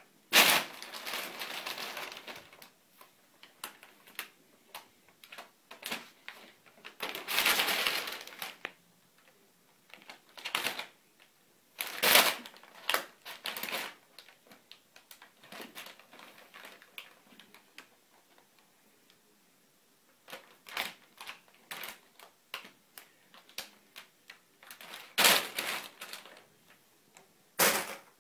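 Brown paper bag crinkling and rustling in irregular bursts as a cat pounces on it and paws at it, with another cat underneath. Some bursts are short crackles and some are longer rustles of a second or two.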